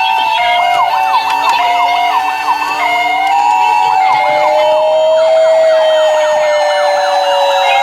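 Several electronic emergency-vehicle sirens from toy minicars sound at once: a two-tone hi-lo ambulance siren stepping between two pitches, a fast repeating yelp, and a slower wail that glides gently down.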